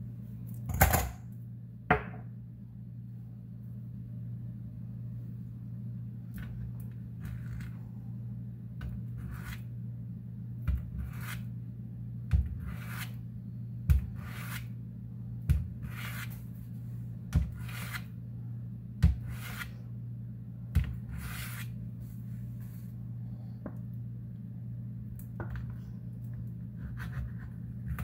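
A series of light knocks about every one and a half seconds, each with a brief swish, as thread and hands work on a plastic cutting board while cutting a block of Velveeta. Two sharper clicks come about a second and two seconds in. A steady low hum runs underneath.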